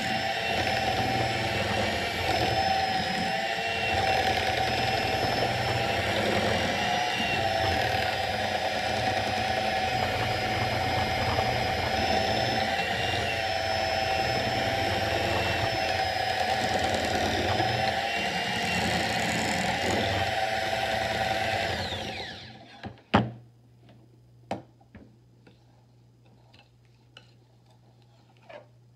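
Electric hand mixer running steadily with a wavering whine, its beaters churning a thick butter, sugar and egg mixture in a glass bowl. About three quarters of the way through it is switched off, followed by a few sharp clicks and knocks of a metal utensil against the beaters and the bowl.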